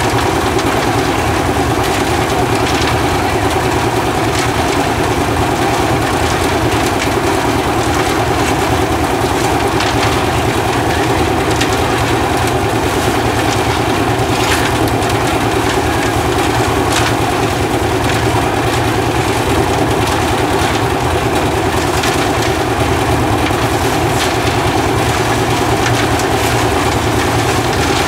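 Portable concrete mixer running steadily, its engine going and the drum turning with wet concrete and stones tumbling inside. A few sharper clatters break through now and then.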